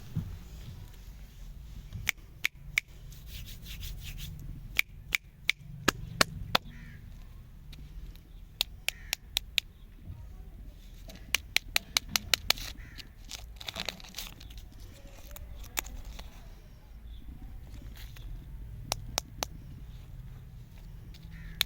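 Hands handling and unwrapping candy packaging: scattered sharp clicks and taps in clusters, with rustling between them, over a steady low hum.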